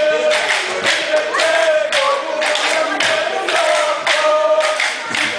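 Kolkali stick dance: a group of men singing a folk song in unison while their short wooden sticks clack together in a steady beat, about two strikes a second.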